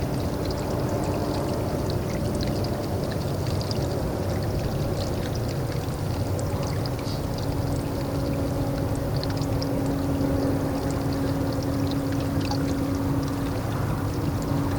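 Water pouring and lapping steadily, with scattered small splashy ticks, over a steady low hum.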